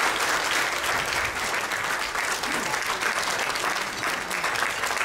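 Audience applauding steadily: dense, even clapping throughout.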